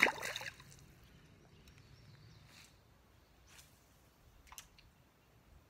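A small largemouth bass dropped from the bank into creek water: one short splash at the very start. A few faint clicks follow later.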